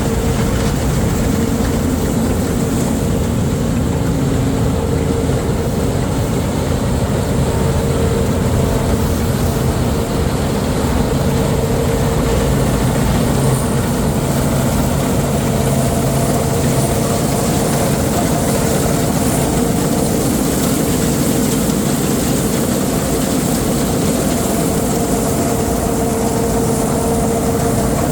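Heavy farm machinery's diesel engine running steadily, with a constant mid-pitched whine above a deep rumble.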